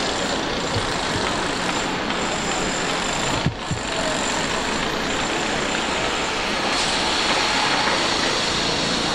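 Steady construction-site din of engines and machinery running, with a short dip about three and a half seconds in.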